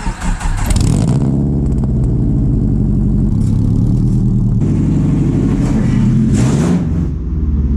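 Nissan Sentra four-cylinder engine running loudly through a true quad exhaust, its revs shifting, with one rev rising and falling near the end.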